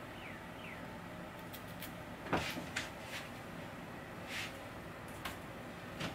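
A few scattered light clicks and knocks of small objects being handled, the loudest about two seconds in, with a soft swish a little after four seconds.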